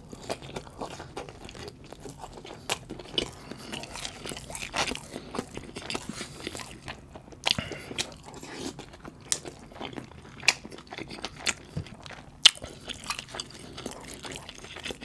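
Close-miked chewing and wet mouth sounds of eating butter chicken and rice, with many sharp clicks and smacks; one louder click about twelve and a half seconds in.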